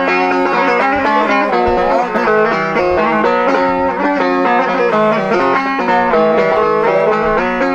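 Turkmen dutar, a long-necked two-string lute, played solo in a fast run of plucked and strummed notes, the melody moving quickly over a steady low drone note.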